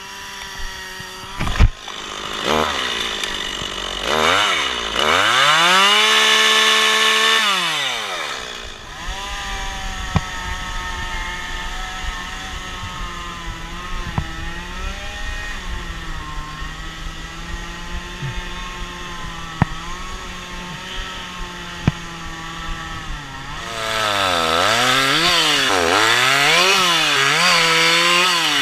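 Chainsaw engine running: it revs up and holds at high speed for a couple of seconds, drops back and idles steadily, then is blipped up and down several times in quick succession near the end. A sharp knock sounds about a second and a half in.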